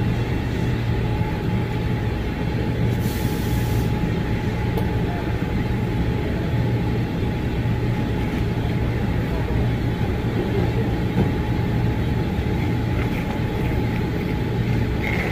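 Steady low rumble of a running vehicle, with a thin steady whine over it and a short burst of hissing air about three seconds in.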